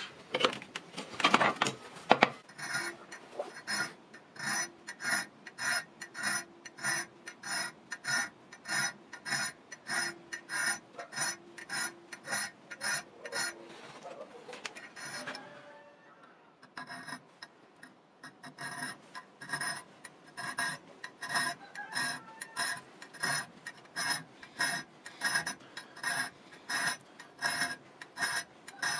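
A hand file scraping back and forth across the edge of a steel knife blank held in a vise, in even strokes about two a second. There is a brief clatter at the start, and a short pause a little past halfway before the strokes resume.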